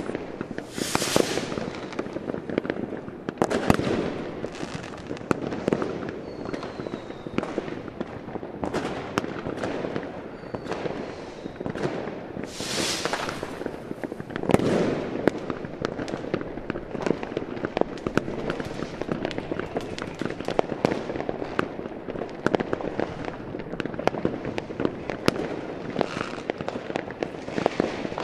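A dense, irregular run of sharp pops and crackles that goes on without a break, with loud hissing whooshes about a second in and again near the halfway mark.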